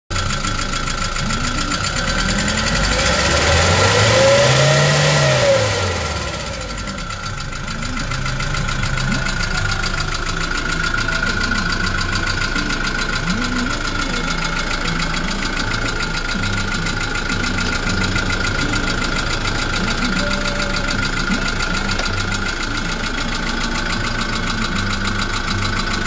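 Kia Bongo III truck's diesel engine idling, revved once about three seconds in, its pitch rising and falling back within about three seconds, then settling to a steady idle.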